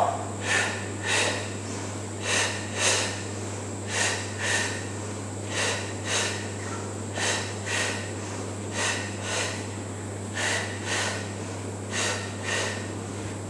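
A woman's short, forceful breath exhalations in pairs, about half a second apart, repeating roughly every second and a half, paced to a two-count pulse of a Pilates single-leg stretch. A low steady hum runs underneath.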